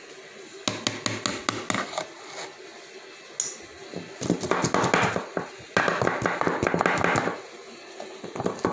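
A metal spoon tapping against a cake tin in a quick run of clicks, then two stretches of scraping and rattling as a layer of cake batter is spread in the tin.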